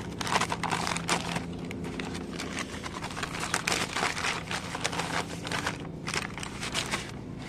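Packaging crinkling and rustling in a steady run of irregular crackles as a new motorcycle sprocket is unwrapped by hand.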